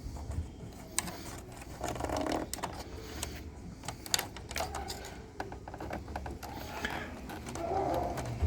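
Irregular small clicks, taps and rattles of metal parts and hand tools being handled, as a switch's threaded fastening is worked into place by hand.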